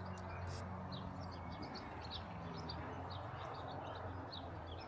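Small birds chirping, many short high calls in quick succession, over a steady low rumble of outdoor background noise.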